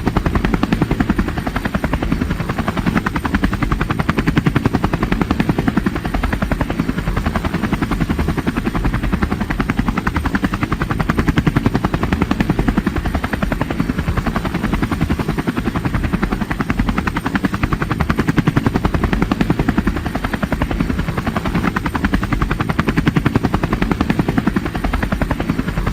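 Helicopter sound effect: the steady, fast chop of rotor blades, heaviest in the low end.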